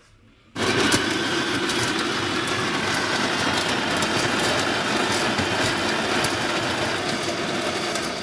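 Dualit electric burr coffee grinder switched on about half a second in, grinding coffee beans with a steady motor noise and fine crackling of the beans, then cutting off near the end.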